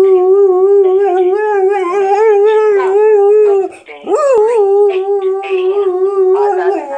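Briard dog howling in long, wavering held notes: one long howl, a brief break with a quick rising yelp about four seconds in, then a second long howl that drops lower near the end.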